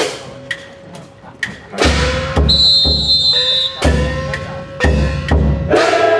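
Festival music for a hauled ship float. It has sharp wooden clacks over a ringing tone, and from about two seconds in, heavy bass drum beats in pairs. A high whistle blast sounds for about a second, and near the end the haulers break into a loud shout.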